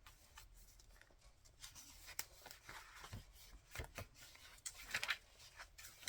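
Paper and card being handled on a work surface: faint rustling and light taps, with a few sharper clicks about two, three and five seconds in.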